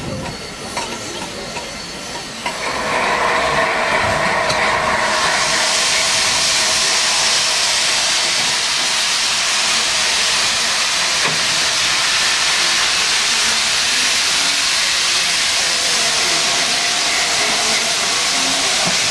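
LNER A4 Pacific steam locomotive 60009 starting away slowly, its steam hissing loudly and steadily. The hiss comes in about two and a half seconds in and grows brighter and stronger about five seconds in.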